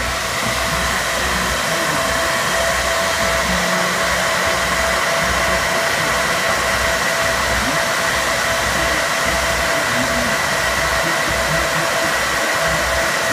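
Amplifier cooling fans running loud and steady: a dense whoosh with two steady whining tones on top. Low bass pulses beat underneath at a regular pace.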